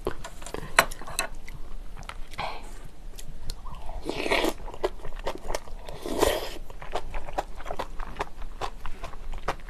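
Close-miked eating: chewing and mouth clicks throughout, with two longer, louder sips from a spoon of seaweed soup about four and six seconds in.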